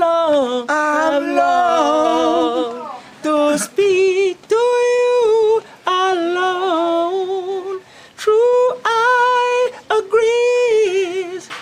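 A man singing a reggae song unaccompanied in a high, near-falsetto voice, holding long notes with vibrato in phrases separated by short breaths.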